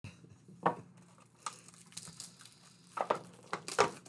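Cardboard trading-card box and foil card packs being handled on a table: a series of short, sharp taps and rustles, the loudest near the end.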